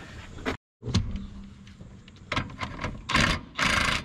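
A few clicks and knocks of tools on a rusty truck suspension, then a DeWalt cordless impact wrench runs in short bursts and, near the end, hammers steadily on the seized upper nut of a shock absorber.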